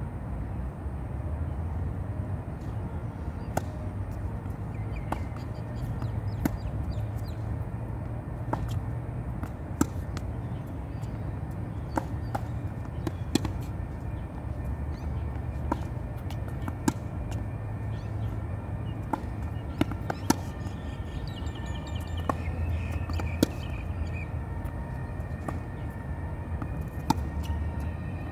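Tennis balls struck by rackets and bouncing on a hard court during rallies: sharp separate pops, often a second or so apart, over a steady low rumble.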